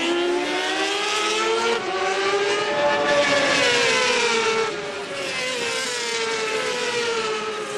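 Racing motorcycle engines at high revs, their note climbing to a peak about three seconds in and then falling away, with sudden steps in pitch along the way.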